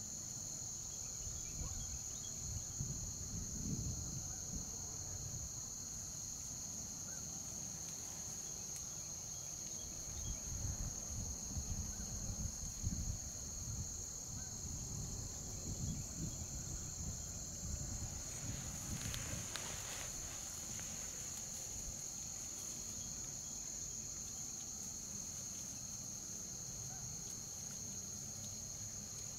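A steady, high-pitched chorus of marsh insects that does not let up. Low uneven rumbles come in twice, and a brief broad hiss is heard about two-thirds of the way through.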